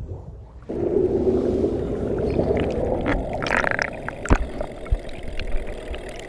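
Muffled underwater water noise from an action camera submerged in a swimming pool: churning, bubbling water that starts suddenly under a second in, with a brief hiss and a few sharp knocks near the middle.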